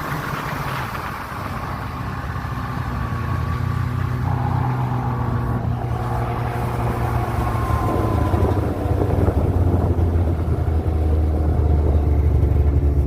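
A vehicle's engine running as it drives: a steady low drone that shifts in pitch a couple of times and grows louder in the last few seconds.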